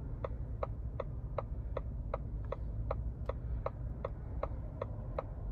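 Ford F-150 Lightning's turn-signal indicator ticking steadily, about three ticks a second, over a low cabin hum.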